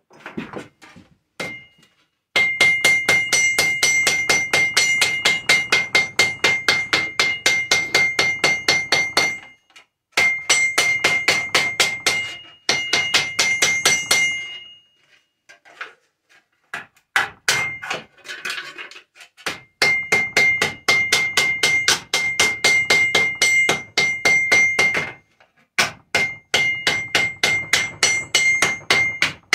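A hammer rapidly beating tin cans flat: fast metallic strikes, several a second, with a ringing metal tone, in runs of a few seconds broken by short pauses.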